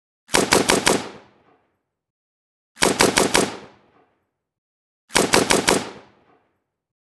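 AK-47 assault rifle firing on full automatic in three short bursts of about five rapid shots each, every burst ending in a short fading echo.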